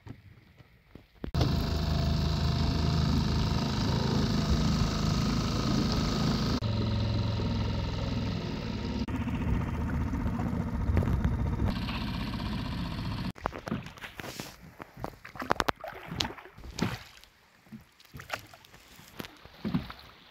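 Small boat's outboard motor running steadily for about twelve seconds, then stopping abruptly. After it stops, water splashes and light, irregular knocks sound from the boat.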